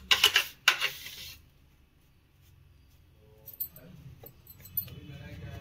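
A steel spoon scraping ground sesame powder out of a mixer-grinder jar into a steel plate, with a couple of sharp knocks against the jar in the first second and a half. After a short pause come scattered light clinks of metal on metal.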